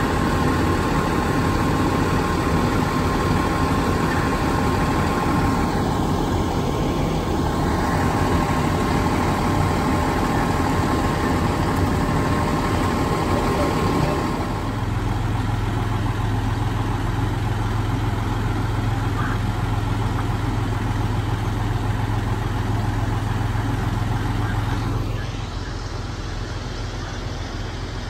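Fire truck's diesel engine idling up close, a steady roar with a constant whine on top. About halfway in the whine stops and it settles to a lower hum, which drops in level near the end.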